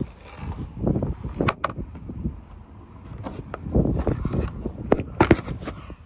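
Strong gusting wind through the camper van's open roof hatch, buffeting the microphone with an uneven low rumble, broken by several sharp knocks and rattles.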